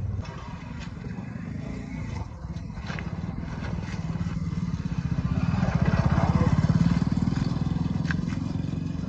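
Tractor's diesel engine running with a fast, even pulse, getting louder through the middle and easing back toward the end.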